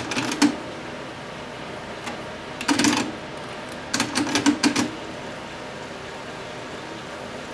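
Mechanical clicking and clunking from the front-panel buttons and tape mechanism of a Pioneer CT-07D dual cassette deck, in three short bursts: at the start, about three seconds in, and again around four to five seconds in. No playback tone comes through: the deck has a no-sound fault.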